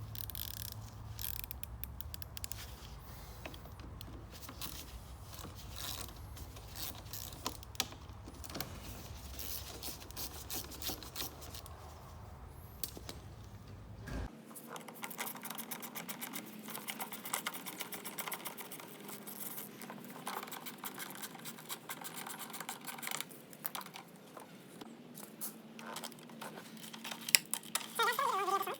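Irregular small clicks, clinks and knocks of hand tools and metal and plastic parts being handled while a Briggs and Stratton mower's carburettor is being taken off. A low background hum runs under the first half and stops abruptly about halfway.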